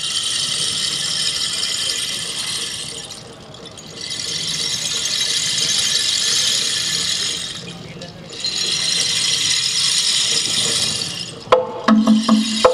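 A high-pitched buzzing noise swells up and dies away three times, each swell lasting about three seconds. Near the end, a quick wooden knocking rhythm starts up.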